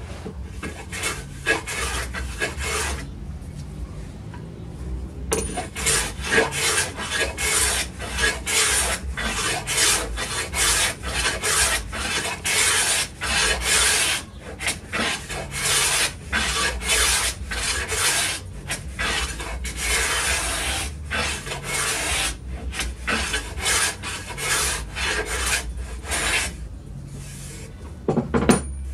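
Hand plane shaving the rough cut edge of an MDF board, smoothing it before varnishing: repeated scraping strokes, with a pause of about two seconds near the start.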